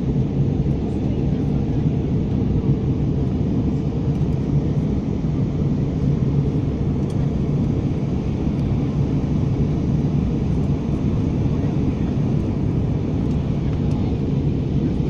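Steady low cabin noise of a passenger aircraft in flight: engine and airflow noise heard from a window seat, even and unbroken.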